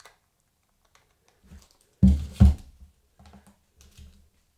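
Plastic case of an Amstrad PenPad PDA600 being handled on a wooden table: two heavy knocks about two seconds in, then small clicks and rustles as the battery cover is worked back into place.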